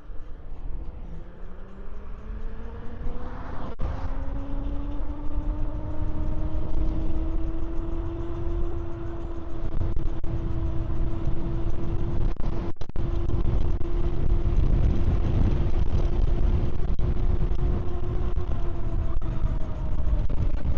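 Electric dirt bike's motor whining as it accelerates, the pitch rising smoothly for several seconds and then holding steady at cruising speed. Underneath is a low wind and tyre rumble that grows with speed, and two sharp knocks, one about four seconds in and one about halfway through.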